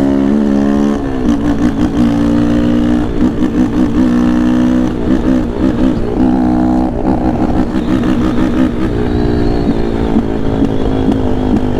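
Yamaha Lander 250's single-cylinder four-stroke engine running under hard riding. Its pitch climbs, drops about a second in as the throttle is rolled off or a gear is changed, then holds fairly level with wavering changes in throttle.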